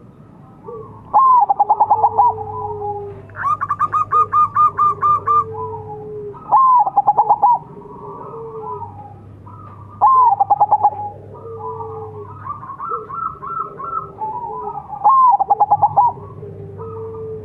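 Zebra doves (perkutut) cooing. About five loud phrases of rapid staccato coo notes come a few seconds apart, the second one longer and higher, over softer drawn-out cooing from other doves.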